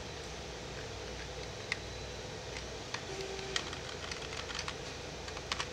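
Scattered sharp clicks of a computer mouse and keyboard keys, a close pair near the end, over a steady low room hiss.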